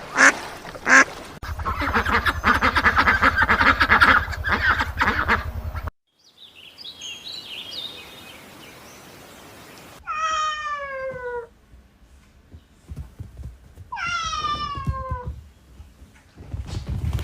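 Ducks quacking, a dense run of calls over a low hum, followed after a quieter stretch by a domestic cat meowing: two long meows falling in pitch, each about a second and a half, and a third beginning at the very end.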